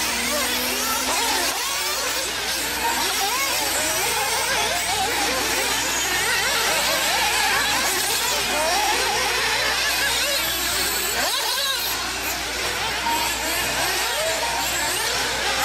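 Several radio-controlled 4x4 off-road buggies racing, their small motors whining up and down in pitch as they accelerate and brake, several overlapping.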